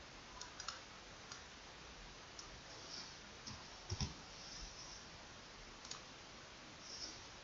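Faint, scattered clicks of a computer mouse over a steady hiss, the loudest a quick double click about four seconds in.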